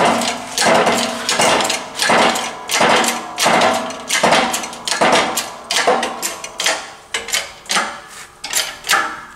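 Hydraulic bottle jack on a shop press being pumped by its handle, in rhythmic strokes about two a second that each ring briefly, as it presses a new pinion bearing onto a pinion gear. Toward the end the strokes come shorter and quicker.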